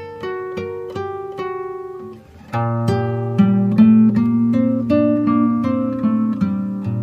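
Background music of plucked acoustic guitar: single notes that ring and fade. After a brief pause about two and a half seconds in, a fuller passage with a steady bass line takes over.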